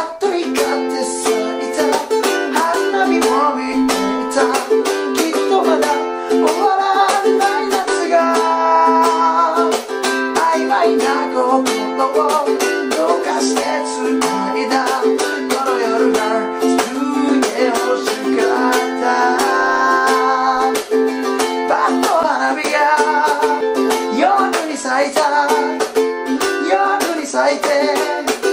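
Ukulele strummed in a busy sixteenth-note rhythm of muted chops and cutting strokes through F, G7, Am and Em7 chords, with a man singing along.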